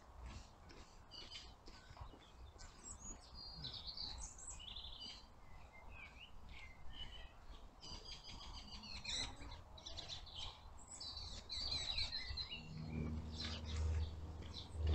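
Songbirds singing and chirping, many short high calls overlapping. Near the end a low steady hum comes in and grows louder.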